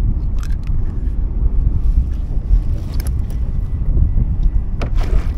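Wind buffeting the microphone in a steady low rumble, with a few short clicks and rattles from a metal clip stringer of porgy being handled, the strongest about five seconds in.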